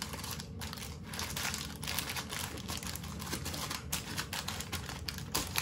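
Baking paper lining a loaf tin crinkling and rustling in a steady run of irregular crackles as hands press and shape bread dough into it.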